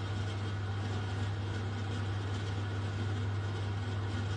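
Steady low hum with a faint even hiss and no speech: room tone.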